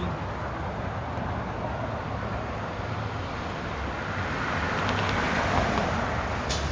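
Road traffic: a steady rumble of passing vehicles' engines and tyres, swelling a little about four to six seconds in.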